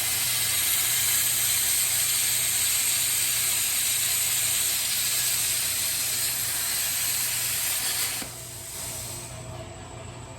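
Plasma cutter at 60 amps cutting through quarter-inch aluminum, with a steady loud hiss of the arc and air and a low hum beneath. About eight seconds in, the hiss drops off sharply and leaves a fainter hiss.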